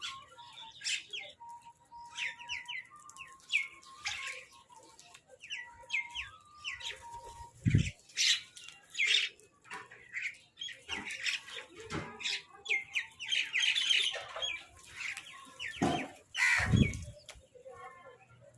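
A flock of crows and mynahs calling over one another in a dense chorus of short, harsh squawks and chattering, typical of birds squabbling over food. There are two low thumps, about eight seconds in and again near the end.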